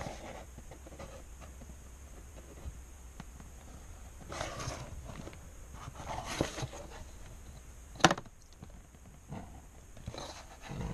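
A clear plastic ruler being slid and repositioned over paper, with pen strokes drawn along its edge, in a few short rustling scrapes. One sharp knock about eight seconds in is the loudest sound.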